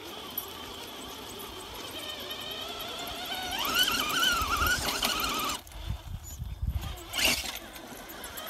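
Electric motor and gears of a radio-controlled off-road truck whining, the pitch climbing and wavering about three and a half seconds in, then cutting off suddenly; a few knocks and low bumps follow.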